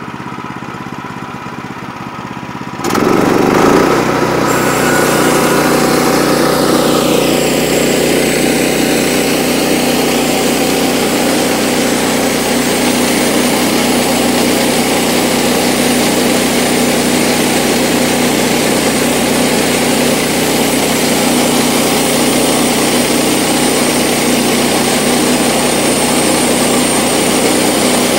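Woodland Mills 122 portable bandsaw mill with its Kohler engine: the engine runs at low speed, then about three seconds in it goes much louder as the band blade is driven into the cut. A high whine falls in pitch over the next few seconds, then the engine and band run steadily, sawing through the cant.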